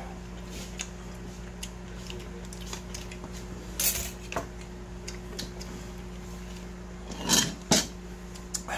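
A metal ladle clinking against a metal ramen pot and a bowl as noodles and broth are served, with a couple of sharp knocks about four seconds in, then two short slurps of broth from the bowl near the end. A steady low hum runs underneath.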